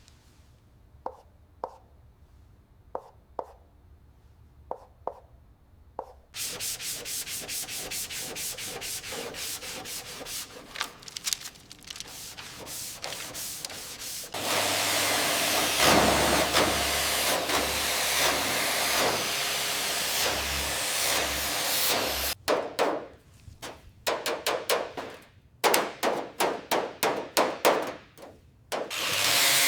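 Hand work of sanding and rubbing on car parts: a few light taps at first, then quick repeated scraping strokes, then about eight seconds of loud, steady sanding noise, then short bursts of it.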